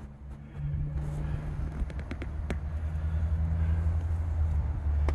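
A steady low engine drone sets in about half a second in and holds, with a few light clicks around two seconds in.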